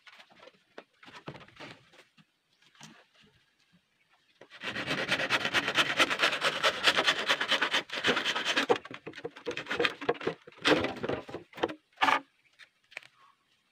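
Handsaw cutting through a green bamboo pole: a fast run of rapid back-and-forth strokes starting about four and a half seconds in and lasting about four seconds. It is followed by a few scattered knocks and scrapes, with a sharp knock near the end.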